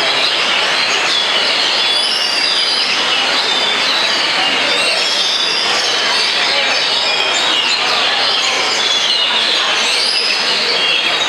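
Several oriental magpie-robins singing at once: many short, overlapping whistled phrases and glides over a steady, dense background noise.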